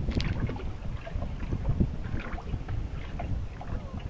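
Wind rumbling on the microphone over calm sea water, with small irregular lapping and splashing sounds close by.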